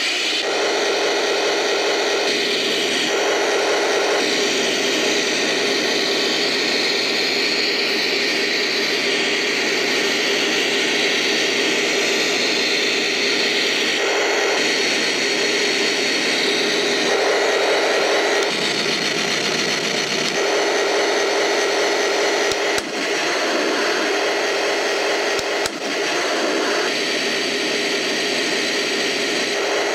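A 1:16 Taigen Tiger I RC tank running: the electronic engine sound from its onboard sound unit with the whine of its drive motors, a steady mechanical drone that shifts up and down in strength every few seconds as it is driven. Two sharp clicks come a little past the middle.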